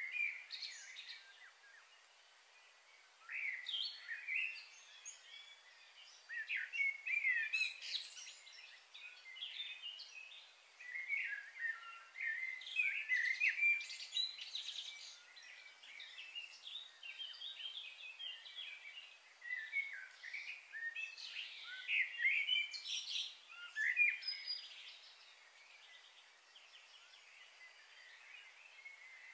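Small birds chirping and twittering in irregular bursts, with quieter stretches between them; a few brief crackles stand out about seven seconds in and again around twenty-three seconds.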